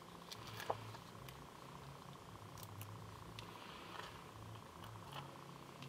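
Faint small clicks and scratches of fingernails picking the release-paper backs off foam adhesive dots stuck to a card panel, over a low steady hum.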